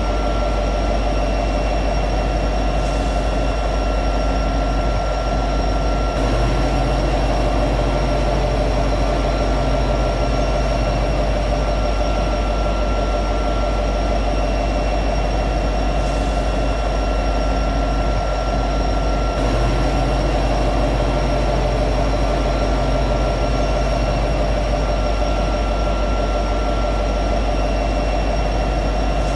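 EMD SD70ACE diesel-electric locomotive sitting at high idle: its V16 two-stroke diesel and cooling blowers give a steady drone with whining tones, and a lower hum joins for a few seconds twice.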